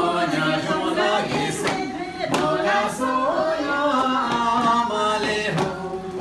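A group of voices singing a folk dance song together with no instruments heard, broken by a few sharp knocks.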